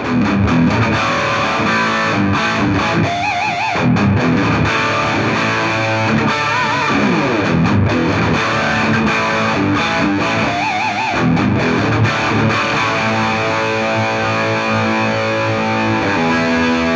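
Electric guitar played through a heavy distortion pedal into a Fender Twin Reverb amp: a lead line whose held notes waver with finger vibrato, settling near the end onto one long sustained note.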